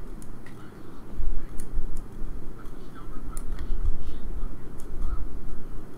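A low, uneven rumble with a few light ticks and clicks scattered through it.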